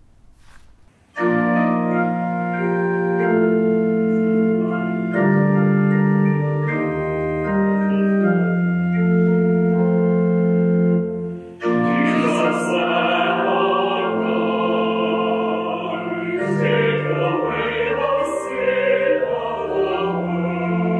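Organ music playing slow, held chords, starting about a second in. After a short break about halfway through, a solo voice sings over the organ with a wavering vibrato.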